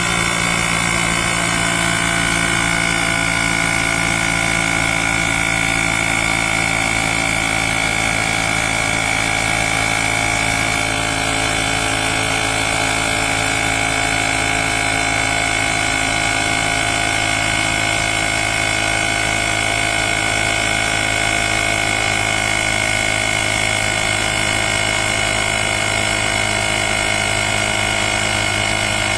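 Nature Hero 150 PSI cordless tire inflator running steadily while it pumps up a motorcycle tire toward a 33 PSI preset. The compressor's motor and pump make a loud, even drone with a high whine above it.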